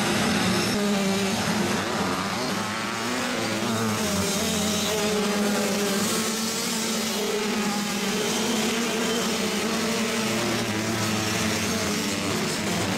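Several small junior motocross bikes running at once, their engines revving, with a shifting mix of pitches that rise and fall.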